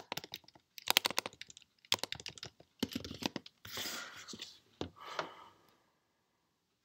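Typing on a computer keyboard, quick bursts of keystrokes for about three and a half seconds, followed by a couple of brief rustling noises.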